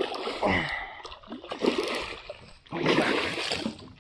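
Water splashing in three or four short bursts as a large black drum thrashes at the surface on the line beside the boat.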